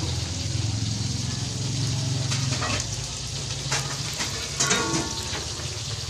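Hot oil sizzling in a wok as pieces of battered dodol cina fry, with a few sharp clinks. A low hum runs underneath, strongest in the first half.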